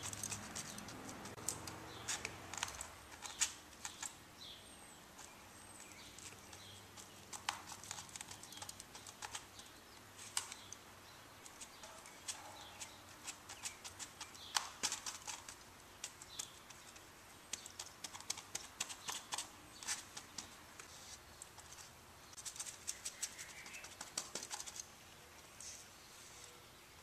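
A small resin brush dabbing and stippling fiberglass cloth over a plastic-wrapped foam form to wet it out with resin, a scatter of quick, irregular soft taps and crinkles in clusters.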